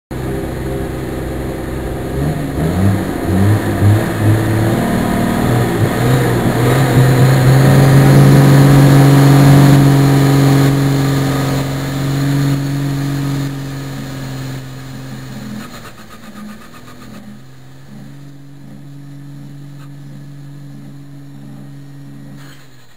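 A tractor's diesel engine heard from inside the cab, working hard and getting louder to a peak about eight to ten seconds in, then easing off in steps around fourteen to sixteen seconds to a quieter, steady running with a slow regular pulsing.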